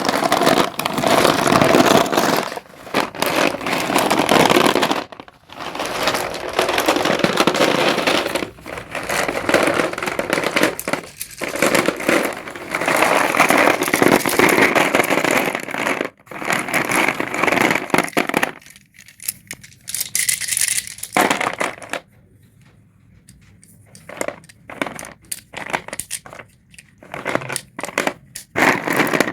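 Sticks of colourful dustless school chalk being crumbled and crushed, a dry crunching crackle that comes in spurts with brief pauses and thins out to scattered crackles for a while about three-quarters of the way through.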